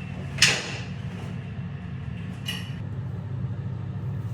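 A sharp knock or clatter about half a second in, the loudest sound, and a smaller one a couple of seconds later, over a steady low hum.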